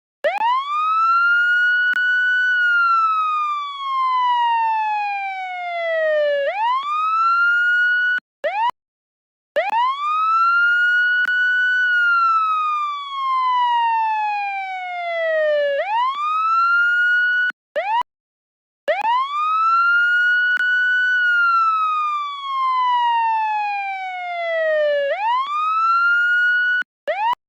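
Police siren wailing in a repeating cycle: the pitch rises quickly to a high note, holds about two seconds, slides slowly down, swoops back up and then cuts off for about a second before the next cycle. Three cycles in all.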